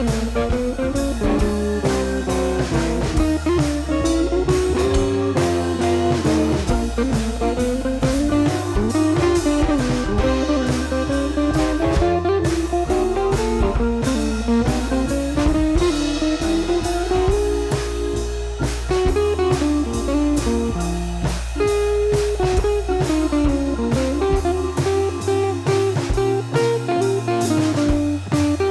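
Background music: a guitar-led instrumental with a steady drum beat and bass.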